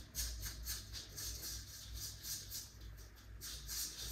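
Mask brush stirring and scraping a gritty ground-coffee paste around a small mask bowl: rhythmic scratchy strokes, about four or five a second, growing busier near the end, over a low steady hum.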